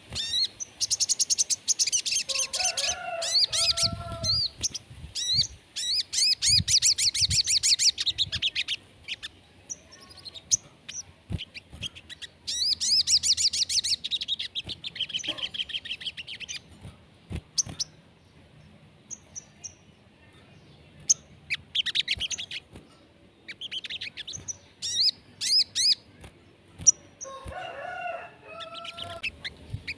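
A sogon songbird singing loudly in bursts of rapid, high, buzzing trills, each a second or two long with pauses between. It mixes in a few lower, clearer whistled phrases near the start and again near the end: filler songs the bird has learned.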